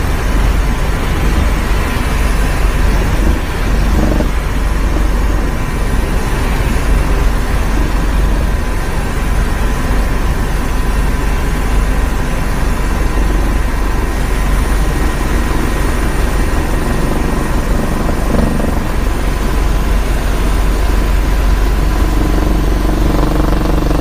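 Helicopter in flight: a loud, steady drone of rotor and engine noise with a faint steady whine.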